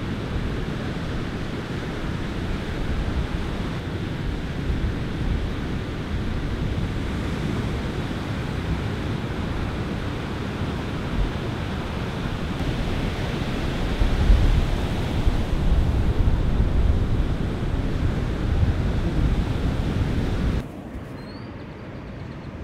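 Large ocean waves breaking, a steady rushing wash of surf with wind buffeting the microphone and rumbling in the lows. It swells louder about two-thirds of the way through, then drops suddenly to a quieter, duller rush near the end.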